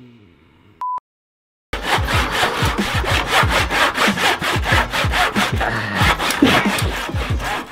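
Hand saw sawing in fast back-and-forth strokes, about three a second. Just before it, about a second in, comes a short high beep and a moment of dead silence.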